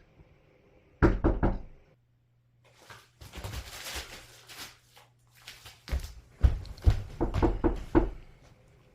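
Knocking on a door: a quick group of raps about a second in, then a longer run of raps from about six seconds in, with softer rustling sounds between them.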